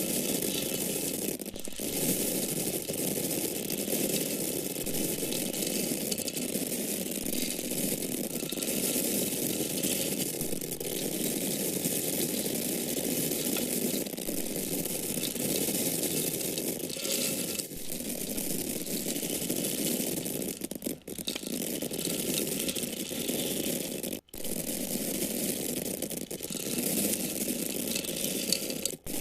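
Dry corn kernels or grain falling in a continuous stream, a dense patter of many tiny hard clicks. There are a few brief breaks in the flow.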